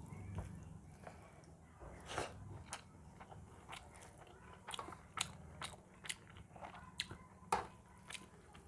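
Rice and fish curry being squeezed and mixed by hand on a metal plate, close to the microphone. It gives irregular sharp, wet clicks and soft squishes.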